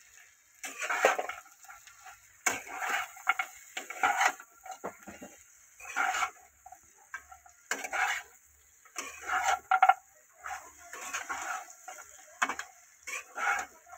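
Metal spatula stirring and turning fried vegetables in a non-stick wok, about ten separate scraping strokes roughly a second apart.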